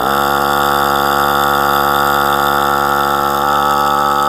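Onboard electric starter spinning an Enya .11 glow engine. It starts suddenly, spins up briefly in pitch, then holds a steady motor whine.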